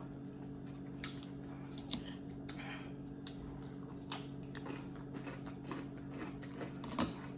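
A person chewing tender beef short rib meat: soft, irregular wet mouth clicks and smacks, with a sharper click about two seconds in and another near the end. A steady low hum runs underneath.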